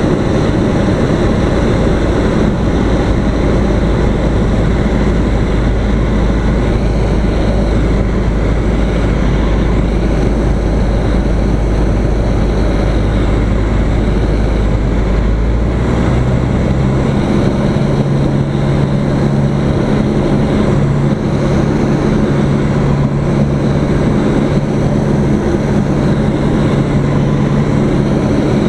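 Small single-engine propeller airplane's engine and propeller droning steadily, heard from inside the cockpit with airflow noise. The engine note changes about halfway through, as with a change of power.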